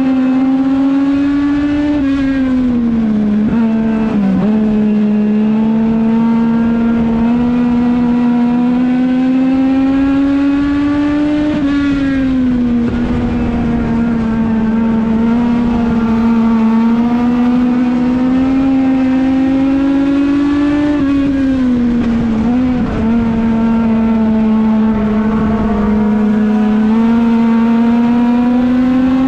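A Legends race car's Yamaha four-cylinder motorcycle engine running hard at high revs, heard from inside the cockpit. The pitch climbs slowly down each straight and dips sharply three times as the driver lifts for the turns, lap after lap.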